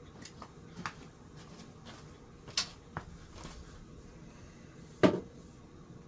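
Metal parts of a disassembled ceiling fan motor being handled: scattered light clicks and knocks, with a sharper knock about two and a half seconds in and a heavier clunk about five seconds in.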